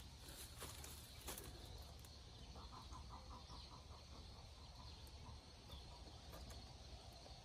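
Near silence with a few light knocks as a metal window-screen frame is handled and set against a wooden window frame, and a brief rapid chatter of about ten pulses about three seconds in.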